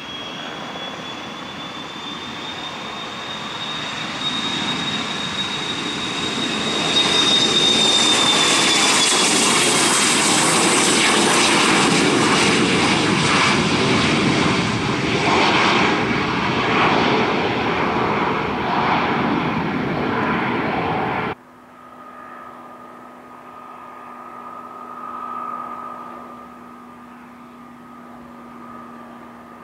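Twin-engine business jet taking off at full power: jet noise with a high whine swells to a loud, steady level for several seconds as it climbs away, then stops abruptly about two-thirds through. After that, a single-engine Piper PA-28's piston engine and propeller drone steadily and more quietly.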